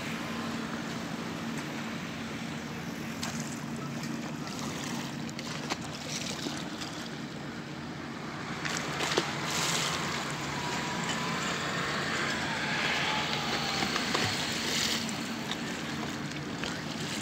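Outdoor lakeshore ambience: a steady rush of wind and water with a low steady hum underneath, a little louder in the second half.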